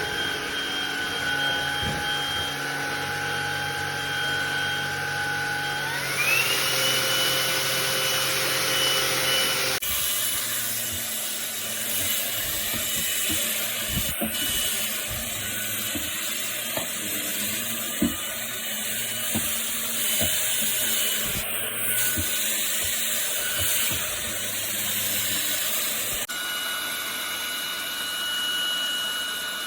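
Cordless stick vacuum cleaner motor running with a steady whine. About six seconds in it speeds up, the whine rising in pitch and then holding, with scattered light ticks later on.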